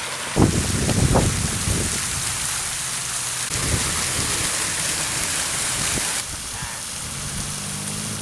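Steady hiss of rain falling, with irregular low rumbles in the first couple of seconds and again briefly before the middle.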